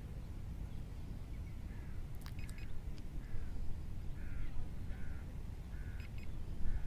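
A bird calling over a low wind rumble: a run of short, harsh calls, each falling in pitch, about one a second through the second half. Two sharp clicks sound a little over two seconds in.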